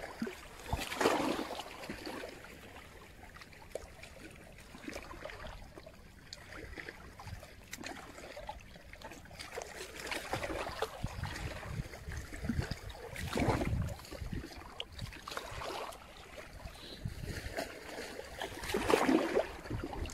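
Small waves lapping and washing on a stony shoreline, with a few louder washes about a second in, around the middle and near the end, and wind rumbling on the microphone.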